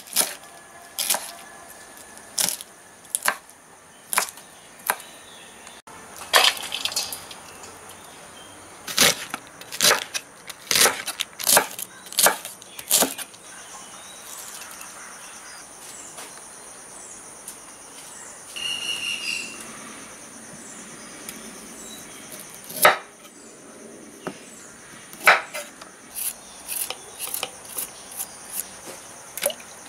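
Kitchen knife chopping cabbage on a wooden cutting board, one sharp chop about every second. In a quieter stretch shredded cabbage rustles as it is mixed by hand in a steel bowl, then comes a run of short knife strokes peeling a carrot.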